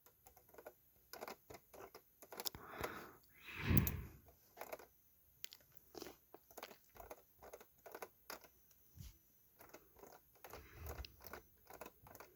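Faint, scattered clicks and taps at an uneven pace, with a louder, duller thump or breath-like noise about four seconds in.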